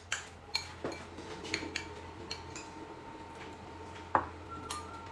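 Tableware clinking and knocking at a meal: a series of light clinks of utensils against dishes, with one louder knock about four seconds in.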